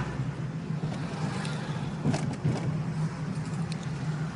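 Car engine and road noise heard inside the cabin while driving: a steady low drone, with a few light clicks about two seconds in.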